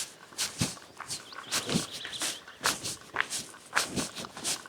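Footsteps of a person walking at an even pace, about two steps a second, each a short crunch.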